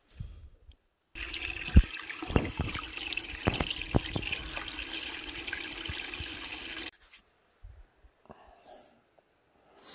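Water trickling and splashing over rocks in a small stream, recorded up close, with a few low thumps. It starts about a second in and cuts off abruptly about seven seconds in, leaving only faint small sounds.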